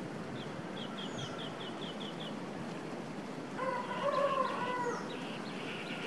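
A rooster crows once, about 1.5 s long, starting about three and a half seconds in; it is the loudest sound. Before it a bird gives a quick run of about nine short high chirps, four or five a second, and more high chirps follow near the end.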